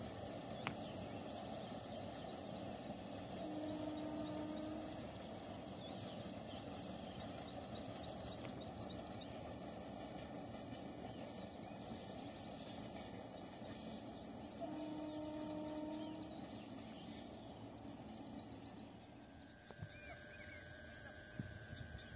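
Faint outdoor ambience beside an empty railway track: a steady noisy hiss with small bird chirps throughout and a brighter bird note near the end, broken by two short steady low tones, each about a second long, a few seconds in and about fifteen seconds in. No train passes.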